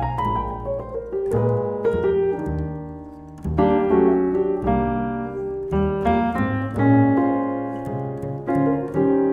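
Keybird acoustic keyboard played as a jazz ballad, chords and melody with its tone softened by a felt strip between hammers and strings. A plucked double bass walks beneath it.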